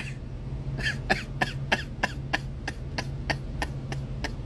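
A man laughing in short breathy huffs, about three a second, starting about a second in, over a steady low hum.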